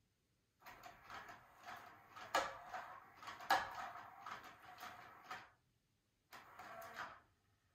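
Battery-powered interactive cat toy running: its small motor whirs and clicks as the lure moves around inside the plastic housing, stopping dead twice, with sharp clicks of kittens' paws striking the plastic.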